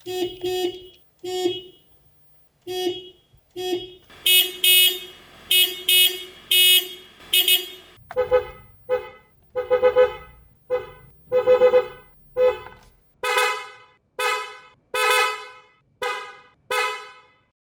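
A car horn sounding in a series of short honks, some of them quick doubles. For about the first eight seconds it is a single-tone horn, typical of the Toyota Corolla Cross Hybrid's thin-sounding stock mono horn. It then changes to a higher, fuller horn, typical of PIAA dual-tone snail horns.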